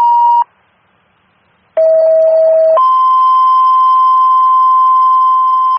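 Fire dispatch two-tone paging tones over a radio scanner. A steady tone cuts off about half a second in; after a pause, a lower tone sounds for about a second, then a higher tone is held for about three seconds. The tones are the alert that sets off the firefighters' pagers ahead of a dispatch announcement.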